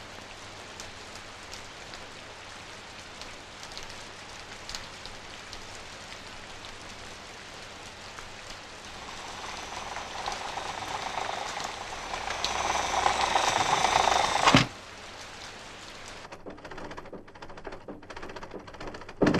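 Rain, a steady hiss that swells louder through the middle and then stops abruptly about three-quarters of the way in, leaving a fainter hiss with a few scattered clicks.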